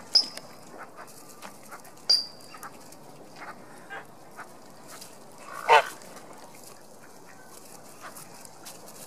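Domestic goose giving one loud honk a little over halfway through, after two short high-pitched chirps near the start. Faint clicks and rustles of birds pecking at bread on wood chips run between the calls.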